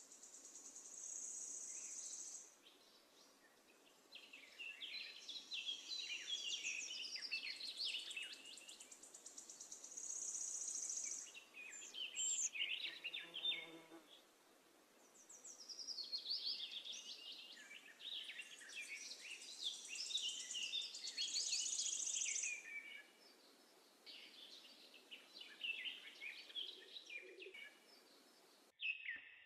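Small birds chirping and twittering in bouts of quick rising and falling notes, with a high buzzing trill now and then and quieter gaps in between.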